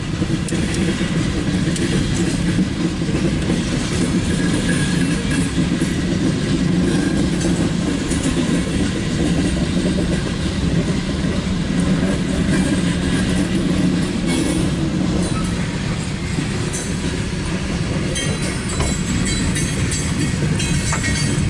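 Loaded CSX coal hopper cars rolling past, their steel wheels running steadily on the rails, with scattered clicks later on.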